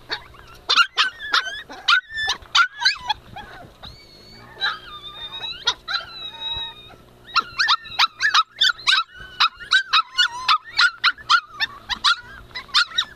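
Two-month-old Tibetan Spaniel puppies yipping and whining: sharp high yips in the first few seconds, longer drawn-out whines around the middle, then a quick run of yips, about three a second, through the last five seconds.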